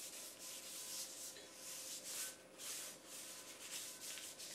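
Hand rubbing oil into the rim of a Wagner cast iron skillet, a faint dry scrubbing in short, uneven strokes, as the pan is coated for seasoning.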